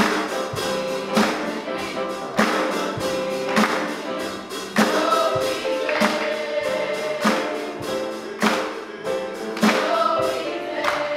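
Gospel music with a choir singing over held keyboard-like notes and a steady beat, a sharp percussive hit about every 1.2 seconds with lighter ones between.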